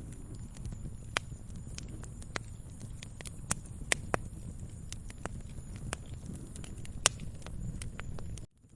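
Wood fire crackling in a fireplace: irregular sharp pops and snaps, a few much louder than the rest, over a low steady rumble of the flames. The sound cuts out for a moment near the end.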